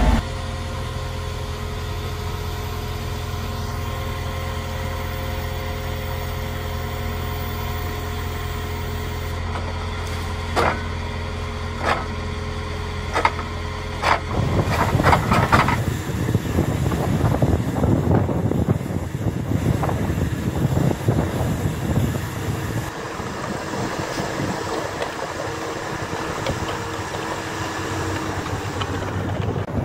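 Engine of a Kodiak K10 tracked digger derrick running steadily, with a few sharp clanks a little past the middle. About halfway through, the steady hum cuts off and a rougher, uneven noise takes over.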